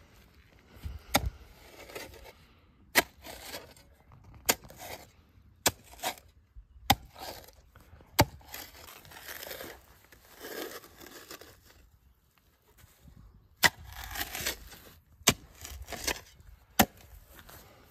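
Spade digging into grassy soil: a sharp knock each time the blade is driven in, about every second and a half, with scraping and tearing of turf and earth between strikes. In the middle there is a longer stretch of scraping with no strikes.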